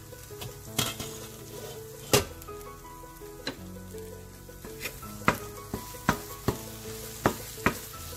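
Onion-tomato masala sizzling in a steel pan as it is stirred, with about ten sharp clicks of the utensil knocking against the pan, coming faster in the second half. Soft background music plays under it.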